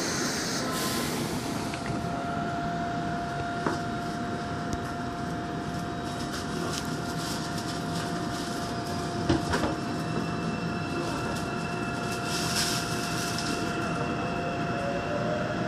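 Daegu Metro Line 2 subway car heard from inside, standing at a platform with a steady hum and a couple of clicks. Near the end a rising motor whine comes in as the train starts to pull away.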